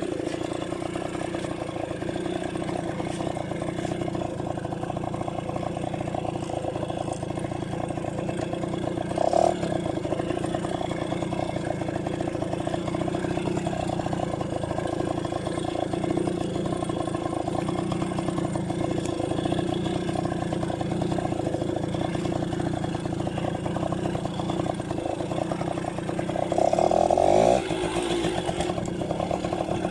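Yamaha V50's small two-stroke single-cylinder engine running steadily, with a short rise in engine speed about nine seconds in and a louder burst of revs near the end.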